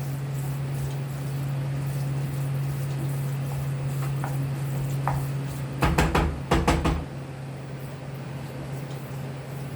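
Kitchen utensils clinking and knocking against a dish, a quick cluster of sharp clinks about six seconds in, over a steady low hum.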